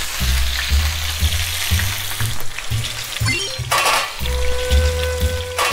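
Monkfish steak frying in hot oil in a nonstick pan, a steady sizzle. Background music with a pulsing bass plays under it, and a short whoosh comes about four seconds in.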